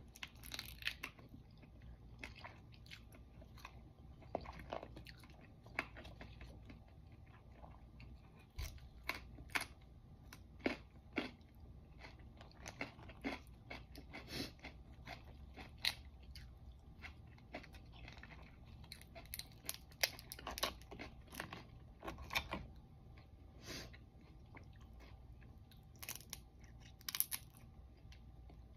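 Steamed crab being eaten by hand: chewing, with many irregular sharp cracks and clicks as the shell is broken and picked apart.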